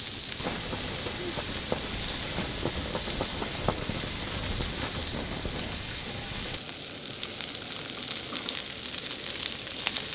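Food sizzling as it fries in a pan, a steady hiss with scattered crackles and pops. A low rumble underneath drops away about two thirds of the way through.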